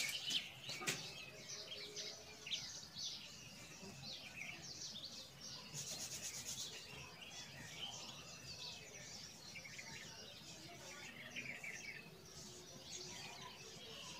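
Whiteboard marker rubbing and squeaking across a whiteboard as words are written, with small birds chirping in the background.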